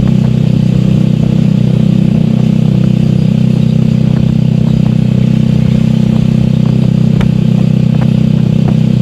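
Honda Supra Fit's single-cylinder four-stroke engine running steadily at an even cruising speed while the motorcycle is ridden on the road, with a few faint clicks and rattles over it.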